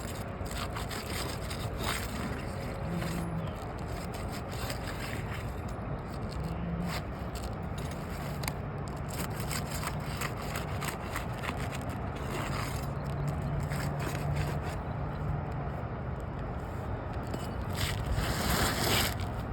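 Asphalt shingles being lifted and released from their seal strips: scraping with scattered small cracks and clicks as the seals break loose, with a louder stretch of scraping near the end.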